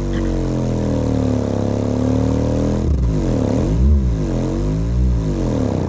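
A pair of Sundown Audio U-6.5 subwoofers playing bass frequency sweeps from a test track in free air, turned up hard with the cones at long excursion. A loud, low tone glides slowly at first, then from about halfway sweeps quickly up and down about once a second.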